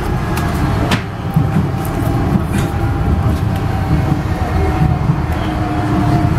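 Docklands Light Railway train running between stations, heard from inside the carriage: a steady low rumble with a faint steady whine and a few sharp clicks, the clearest about a second in.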